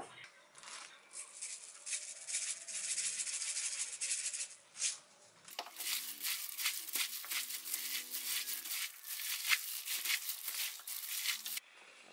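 Sesame seeds shaken out of a container over a bowl of sauced noodles, a dense rattling hiss for about five seconds. Then a plastic-gloved hand tosses the noodles and vegetables in a stainless steel bowl, a run of quick rustles that stops abruptly near the end.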